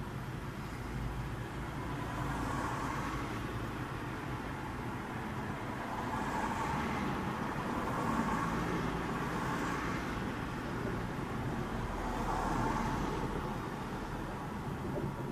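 Road traffic: several cars and a van passing close by in turn, each swelling and fading, over a steady low hum of street traffic.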